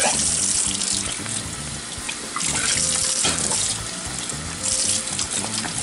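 Water running steadily, with background music and a stepping bass line underneath.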